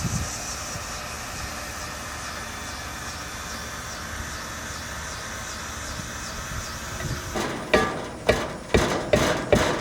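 A heat gun blowing with a steady hiss. From about seven and a half seconds in it is joined by sharp knocks roughly twice a second, louder than the hiss, as the wheel is struck to separate its pieces.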